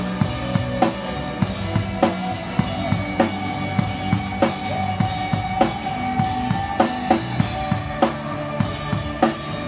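A live band playing an instrumental passage: a drum kit keeps a steady beat of kick and snare, with a strong snare hit about every second, over sustained band notes, one of which is held for several seconds in the middle.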